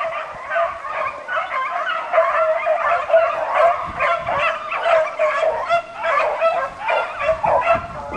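A pack of beagles in full cry: many hounds baying at once in overlapping voices without a break, the sound of the pack running a roe deer's scent.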